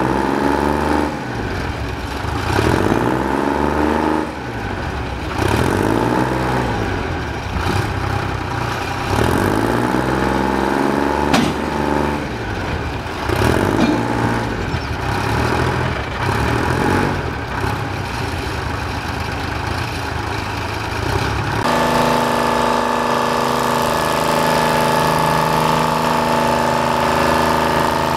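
Engine running, its tone swelling and sweeping in a slow repeating cycle about every second and a half; about 22 seconds in it changes abruptly to a steady idle.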